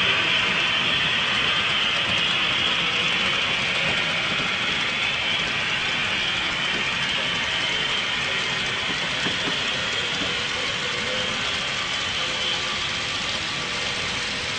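HO-scale model trains running on the layout's track: a steady mechanical running sound of small wheels and motors that grows gradually fainter.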